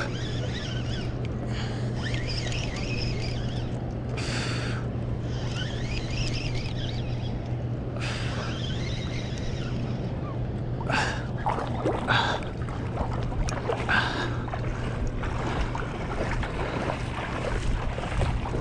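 Steady rush of river water below a hydroelectric dam, with a low steady hum and wind on the microphone. A few short, brighter bursts of noise come near the middle.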